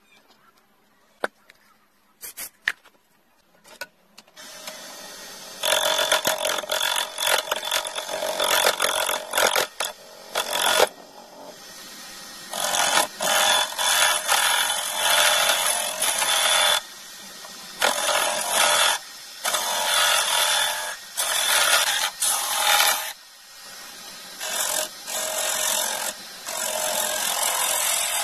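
A small wood lathe starts up about four seconds in, and then a hand-held turning tool cuts the spinning stabilized-wood blank in loud scraping passes, broken by short pauses. A few faint clicks come before the lathe starts.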